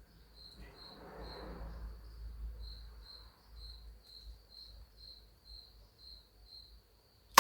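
Crickets chirping steadily, a high pulsing trill repeating about twice a second, with a soft rustle about a second in.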